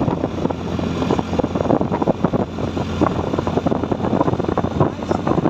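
Motorcycle riding at highway speed: wind buffeting the microphone over a steady engine and road hum.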